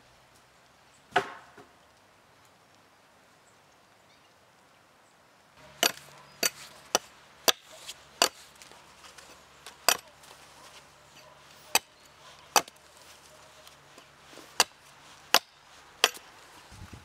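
Curved-blade chopping tool (a traditional 'aldi') striking side branches off a standing sapling, cutting into green wood. A single knock comes about a second in, then from about six seconds in a dozen or so sharp chops follow at an irregular pace, some close together and some a second or two apart.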